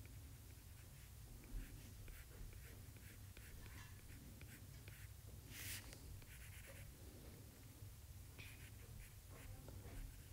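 Faint, scattered ticks and scratches of a stylus on a tablet's glass screen over a low steady hum, with a short hiss about halfway through.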